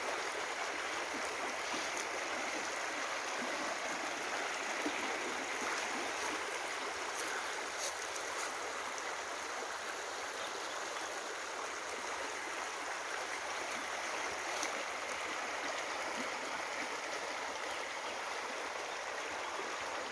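Shallow seasonal river running again after rains, its water rushing and babbling steadily over rocks.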